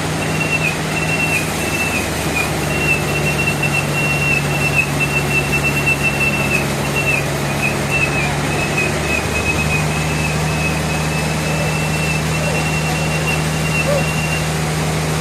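Sawmill machinery running with a steady low hum and a thin, slightly wavering high whine over it. The whine stops near the end.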